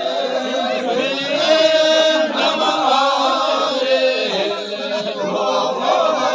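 Buddhist prayer chanting by a group of voices, held sung tones with bending pitch carried on without a break.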